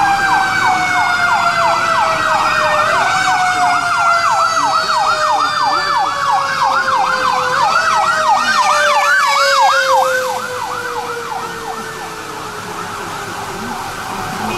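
Emergency vehicle siren in a fast yelp, with a second siren tone gliding slowly downward beneath it, heard from inside a car. The yelp stops about ten seconds in.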